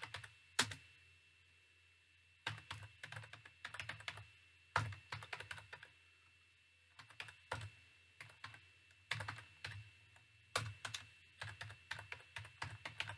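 Computer keyboard typing: quick runs of keystrokes separated by short pauses, as a command is typed into a terminal.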